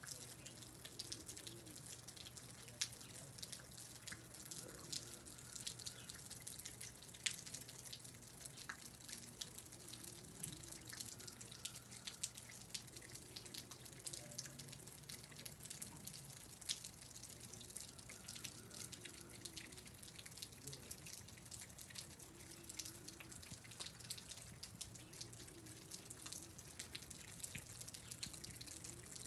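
Faint, irregular dripping of water drops, with a low steady hum underneath.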